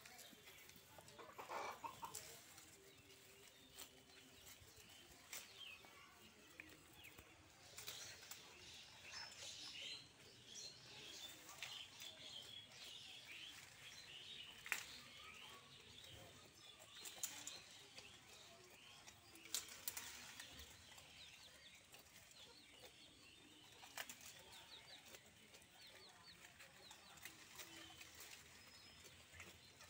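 Faint rustling of leaves and grass as goats pull at a leafy branch and tear and chew the foliage, with a few sharp clicks. Chickens cluck quietly in the background.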